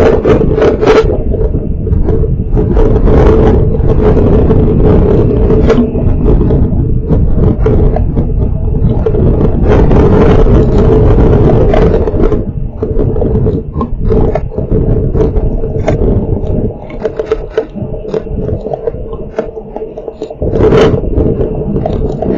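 Strong wind gusts buffeting an outdoor CCTV camera's microphone in heavy rain, with clattering and scraping throughout. The gusts ease somewhat after about two-thirds of the way through and pick up again near the end.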